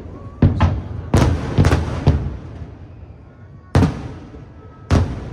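Aerial firework shells bursting in a fireworks display: a quick run of sharp booms in the first two seconds, then two more spaced out, each trailing off in a rumble.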